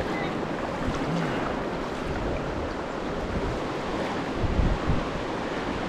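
Moving creek water rushing and lapping around a kayak, with wind buffeting the action-camera microphone; a few low thumps about four and a half seconds in.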